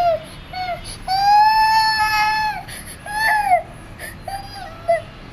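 Baby crying: a few short wails, then one long drawn-out cry about a second in, followed by shorter cries that fall in pitch.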